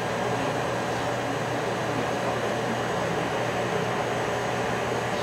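Steady whir and low hum of a Seoul Metro 2000-series subway car's ventilation and onboard equipment while the train stands at a station, with no wheel or track noise.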